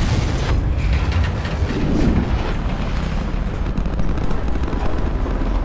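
Loud, continuous low rumble with a crackling edge: a spacecraft shaking through atmospheric re-entry, as dramatised film sound design.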